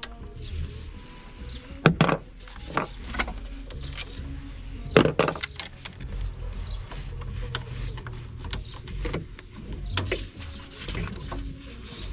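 Metal hand tools and sockets clinking and knocking against metal parts in a car's engine bay, with two sharp knocks about two and five seconds in and lighter clicks between.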